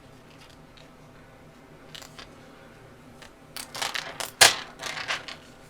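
Plastic protective film being handled and pressed onto a laptop screen: a quick run of crinkles and clicks beginning about three and a half seconds in, with one sharp click about a second later.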